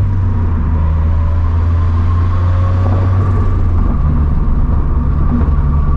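Turbocharged Scion FR-S's 2.0-litre flat-four engine droning steadily at low revs under light throttle while cruising, heard from inside the cabin, with a faint steady high whine over it. The engine note shifts slightly about four seconds in.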